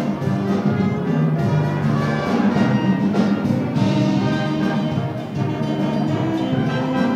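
A school jazz band playing music.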